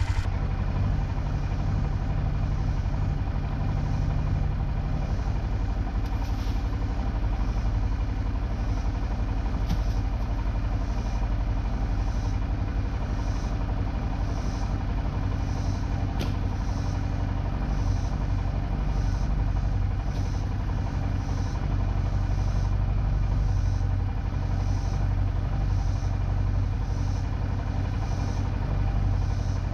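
Four-wheeler engine running steadily, a constant low drone, with a few faint clicks.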